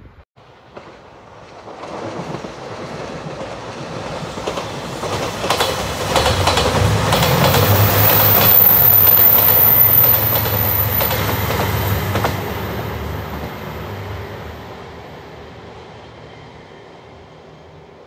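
JR Shikoku 2700 series diesel limited express train passing: it grows louder to a peak about halfway through, with the engines rumbling under wheels clicking over the rail joints, then fades away as it leaves.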